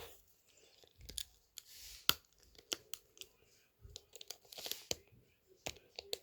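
Small plastic Lego pieces being handled: a dozen or so scattered sharp clicks with soft rustling between them.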